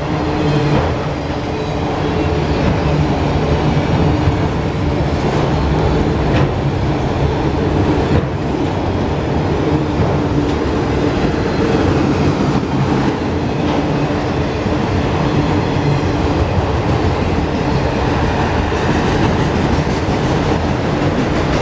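CSX freight train of autorack cars rolling past close by: a steady loud rumble and rush of wheels on rail, with occasional clicks of wheels passing over rail joints.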